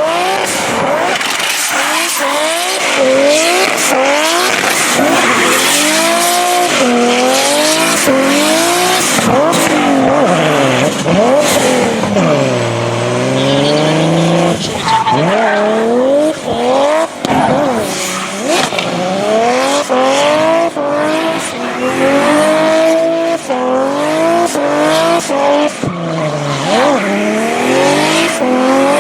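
Drift car engine revving hard, its pitch sweeping up and down again and again as the driver works the throttle through the turns, over the hiss and squeal of sliding tyres. About twelve seconds in the engine note drops low before climbing again.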